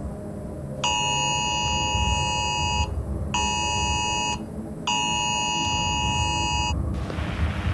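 Emergency Alert System attention signal, the harsh dual tone of about 853 and 960 Hz, sounding in three bursts: long, short, long. After the last burst a static hiss rises over a low background rumble.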